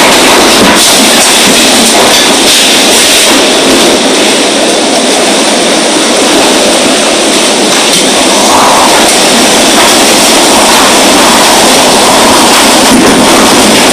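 Strong storm wind blowing hard: a loud, steady rushing noise that goes on without a break.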